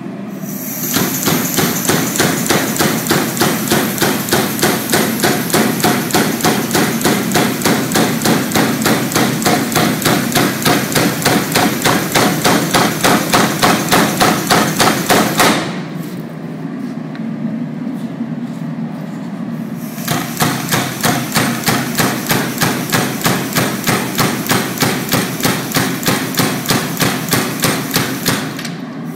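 Air-powered forging hammer (Big BLU power hammer) pounding hot steel in a fast, even run of blows for about fifteen seconds. It pauses for about four seconds, then starts another run of rapid blows.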